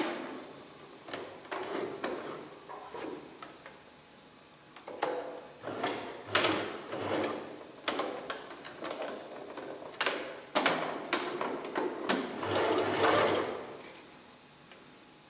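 Domestic sewing machine stitching in short, stop-start runs through thick, bulky layers of jacket fabric, with clicks and knocks between the runs. It falls quiet about a second before the end.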